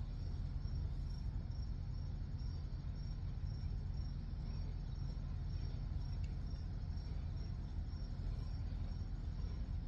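A cricket chirping steadily in a regular rhythm of about three high chirps a second, over a steady low background rumble.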